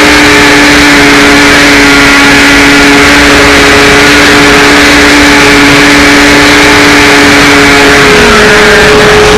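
The HawkSky RC glider's electric motor whining steadily under loud wind rush on the microphone; about eight seconds in, one of its tones slides down in pitch.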